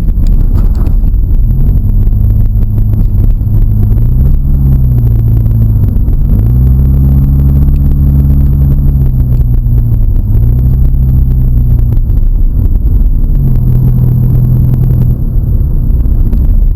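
Car engine revving in several surges, its pitch climbing and dropping about five times, over a heavy low rumble.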